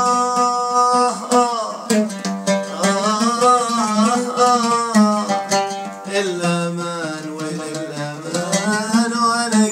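Oud strummed steadily while a man sings long held notes that waver and slide in pitch, with no clear words.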